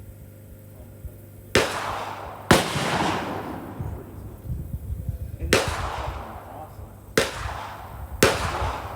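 Five gunshots at a shooting range over about seven seconds. Each is a sharp crack followed by a fading echo, and the second is the loudest.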